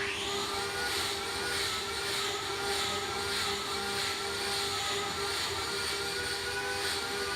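Wood lathe running with a steady hum and a wavering whine. A hiss of cutting starts abruptly and swells and fades somewhat under twice a second.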